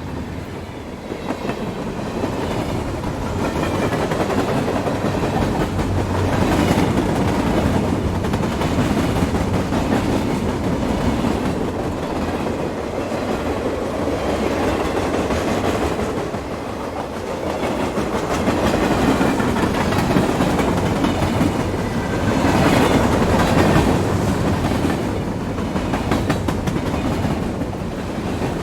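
Railway carriage clattering along the track, its steel wheels clicking over the rail joints in a continuous clickety-clack, the loudness swelling and easing a little now and then.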